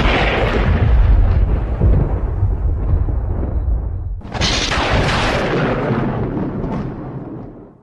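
Two cartoon thunderclap sound effects: the first is already rumbling loudly as it opens and dies away over about four seconds, and a second crack of thunder breaks in about four seconds in, then rumbles and fades out near the end.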